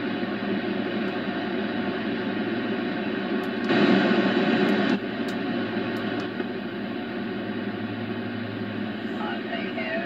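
Hiss of shortwave band noise from a Grundig Satellit 750 receiver's speaker tuned to 14.160 MHz on the 20-meter band, swelling louder for about a second around four seconds in, with a few faint clicks. Near the end a faint, garbled single-sideband voice comes up through the noise.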